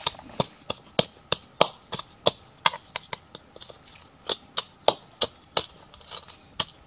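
Rhythmic pounding in a half coconut shell used as a mortar: sharp, hard knocks at about three a second, keeping an even pace.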